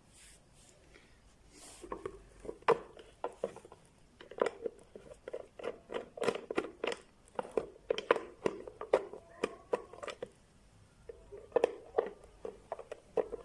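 Irregular run of sharp clicks and knocks of hard parts being handled, with a short lull shortly before the end, typical of an electric mixer being taken apart by hand.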